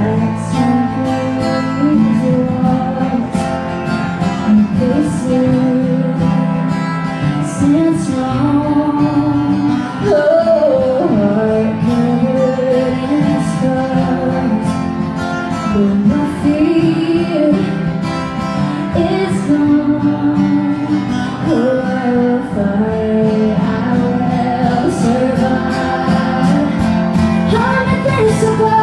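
Live country-pop band playing a song, a woman singing lead over guitars and a steady beat.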